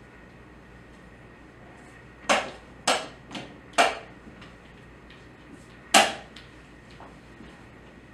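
Chess pieces being set down hard on a wooden board and a chess clock being hit during a fast blitz game: about five sharp knocks, three in quick succession between two and four seconds in and one more, the loudest, about six seconds in.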